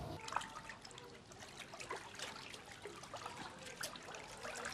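Hot tub water bubbling and lapping, with a fast irregular patter of small splashes.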